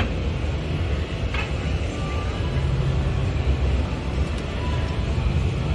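Background din of a busy indoor exhibition hall: a steady low rumble under indistinct crowd chatter.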